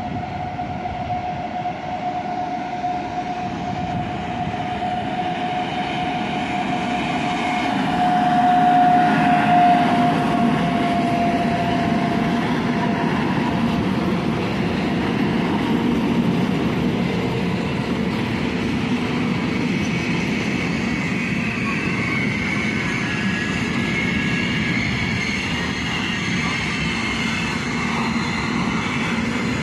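A Siemens EuroSprinter electric locomotive approaches and passes with a steady whine that grows loudest and dips slightly in pitch about nine seconds in. The long intermodal train of container wagons behind it then rolls by with a continuous rumble and rail clatter.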